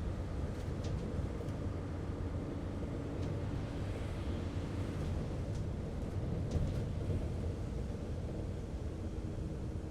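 Bus interior ambience: a steady low engine drone and road rumble from a moving bus, with a few faint clicks or rattles.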